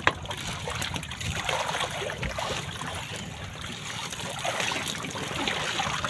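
Seawater splashing and streaming off a fishing net and its catch of fish as the net is hauled up over the side of the boat, with small clicks and knocks throughout. A sharp knock comes right at the start.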